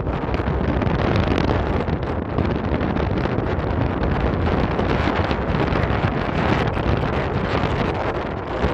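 Strong sea wind buffeting the microphone in a steady, rumbling rush, with surf breaking on a sandy beach underneath.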